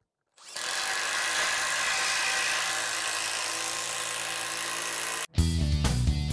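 Makita XDT14 cordless brushless impact driver running steadily for about five seconds, then cutting off sharply. A louder, lower and more uneven run of the tool follows near the end.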